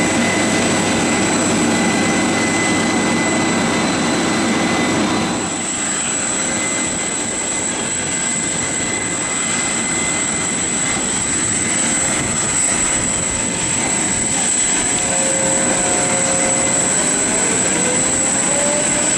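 Jet aircraft engines running with a steady high whine over a rumble; the rumble drops off about five seconds in, and a tone rises near the end.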